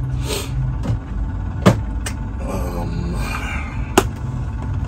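Two sharp knocks about two seconds apart, from objects being handled on a desk, over a steady low rumble.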